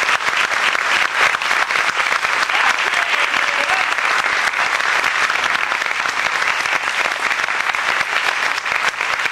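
Studio audience applauding steadily, a dense sustained clapping in answer to a call to welcome a guest.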